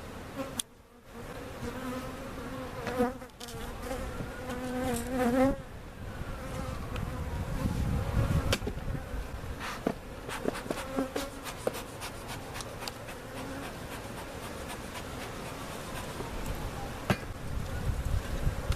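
Swarm of honey bees buzzing around an open hive, single bees flying close past with a buzz that rises and falls in pitch. Scattered short knocks run through it.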